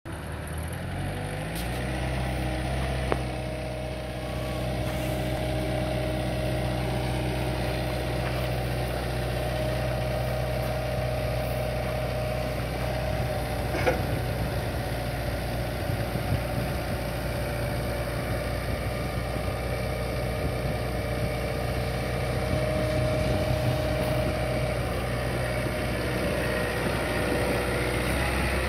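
Caterpillar 306 mini excavator's diesel engine picking up speed over the first second or so, then running steadily at idle, with two brief clicks along the way.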